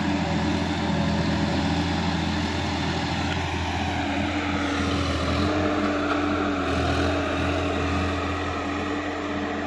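Sonalika DI-50 RX tractor's diesel engine running steadily, its pitch rising slightly for about a second a little past halfway.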